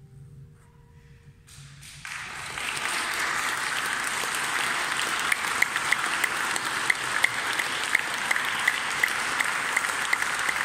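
The last held note of a viola and piano dies away, and about two seconds in the audience starts applauding, then keeps clapping steadily with a few sharp claps close by.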